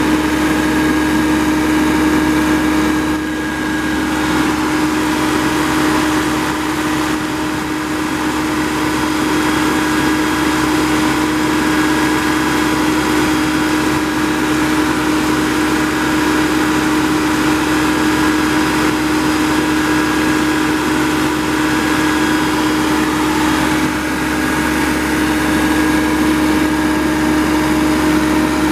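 Yanmar 3TNV84T three-cylinder turbo diesel engine of a John Deere 7500 E-Cut mower running steadily at a constant speed, with a steady hum over the engine note.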